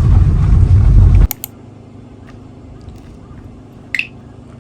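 Car cabin noise, a loud low rumble of road and engine, that cuts off abruptly about a second in. After it comes a quiet, steady low hum with a couple of clicks and a brief high sound near the end.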